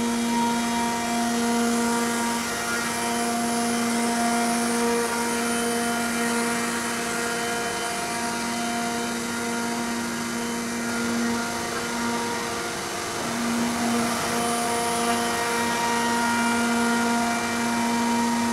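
Techno HDS CNC router spindle spinning a 2.5-inch Amana fly cutter as it skims the spoilboard: a steady whining hum over a broad rushing noise. The hum fades briefly and returns a few times as the head works back and forth.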